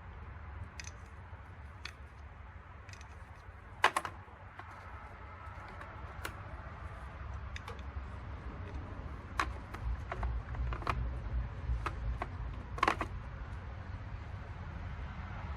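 Scattered metallic clicks and clinks of hand tools, sockets being sorted and tried on a bolt of a lawnmower starter motor, the sharpest clink about four seconds in, over a low steady hum.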